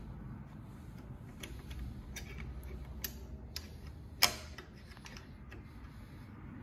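Small metal clicks and taps from hand-fitting a tight-fitting part at the presser foot and needle plate of a Yamata FY-335A cylinder-bed industrial sewing machine. The clicks come roughly once a second, with one sharp, louder metal click about four seconds in.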